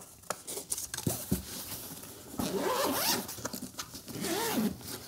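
Zipper of a semi-hard gimbal carry case being pulled open around its edge in two long pulls, a rasp that rises and falls in pitch as the pull speeds and slows. It is preceded by a few light handling clicks on the case.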